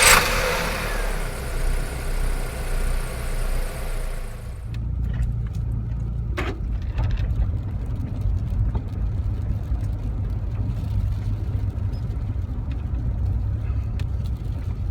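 1.4-litre Rover 45 engine running with a steady low rumble; the owner says it is misfiring badly and has a blowy exhaust. For the first four seconds or so, a bright hiss fades away over it, and a single knock comes about six and a half seconds in.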